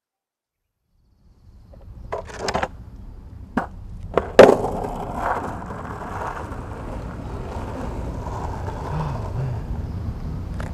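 Skateboard wheels rolling on asphalt, a steady low rumble, after a few sharp clacks about two to four and a half seconds in, the loudest near the end of those.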